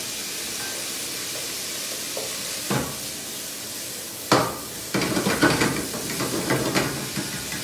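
Minced meat sizzling in garlic and oil in a frying pan, stirred with a wooden spoon. A knock comes about three seconds in and a sharper clack just past four seconds, followed by a run of scraping and clatter of the spoon against the pan.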